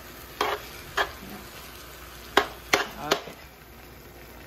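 Chopped potato greens frying in oil with a steady sizzle, while a spoon stirs them and scrapes against the pot five times in the first three seconds. After that the sizzling goes on alone.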